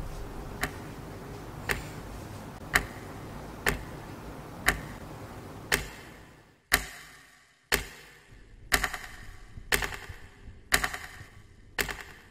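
Clock ticking steadily, about once a second. About halfway through, the background hum falls away and the ticks become louder and sharper, each with a short ring after it.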